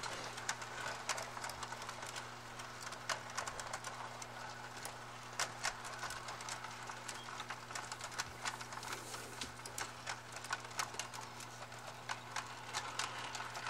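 Model train running on the layout's track: a steady low electric hum under irregular clicking and clacking of small wheels over the rail joints.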